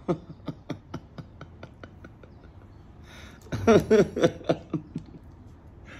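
A man laughing: a quick run of short laughs that fades, then a louder burst of laughter about three and a half seconds in.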